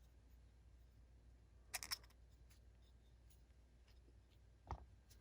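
Near-quiet handling of small metal knife parts: a quick cluster of light clicks about two seconds in, and a single soft thump near the end.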